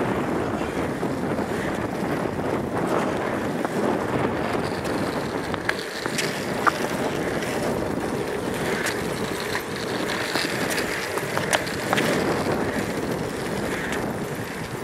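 Skateboard wheels rolling on asphalt, a steady rumble mixed with wind noise on the microphone, with a few sharp ticks along the way.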